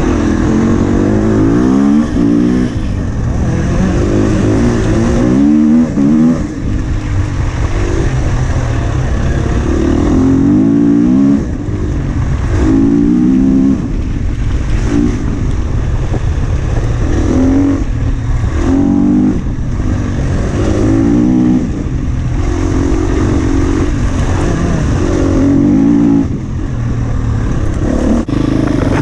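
Husqvarna FE 250 four-stroke single-cylinder enduro motorcycle engine revving again and again, its pitch climbing in short runs and dropping back each time the throttle is rolled off or a gear changes.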